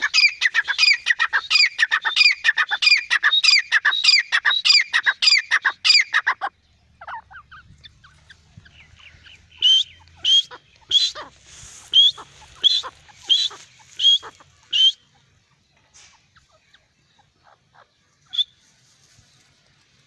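Francolin (teetar) calling: a fast, steady run of repeated downward-sliding notes for about six seconds, then after a short pause a slower series of sharp, loud notes roughly every half second, trailing off into a few faint ones near the end.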